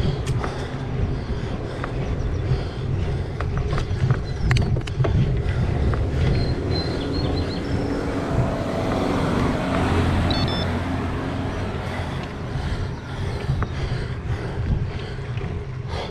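3T Strada road bike riding on pavement, picked up by a handlebar-mounted GoPro: a steady rumble of wind on the microphone and tyre noise, with scattered clicks and rattles in the first few seconds. A car passes, its noise swelling and fading about eight to eleven seconds in.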